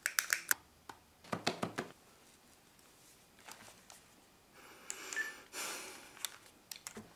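A mobile phone being handled and dialled: scattered short clicks of key presses and handling, soft rustling as it is lifted, and one brief beep about five seconds in.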